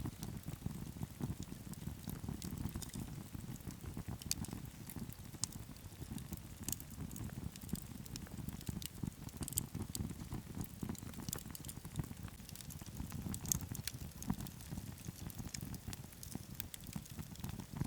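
Wood campfire burning on snow: a steady low rush of flames with frequent sharp crackles and pops from the firewood, scattered irregularly throughout.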